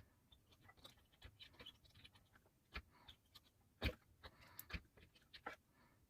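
Faint, scattered clicks and taps of small parts and a tool being handled at a workbench, with one sharper tap about four seconds in.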